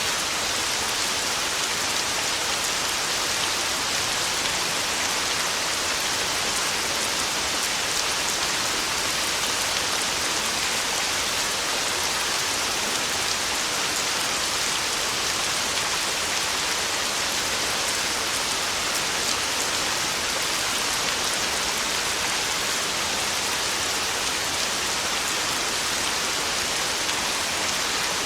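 Heavy rain falling steadily, an even hiss with scattered individual drop ticks.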